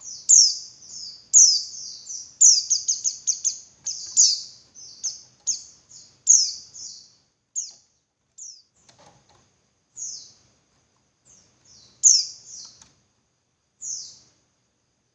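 Female white-eye (pleci) calling to males: short, high chirps that each sweep downward, coming in quick runs for the first half, then spaced out a second or two apart.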